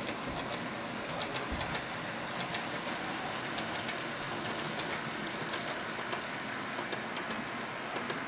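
HO scale model of a V/Line N class diesel locomotive and its freight wagons running along the layout track: a steady running noise with scattered light clicks from the wheels on the rails.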